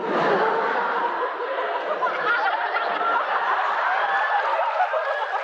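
Audience laughing, many voices at once, starting suddenly and carrying on steadily.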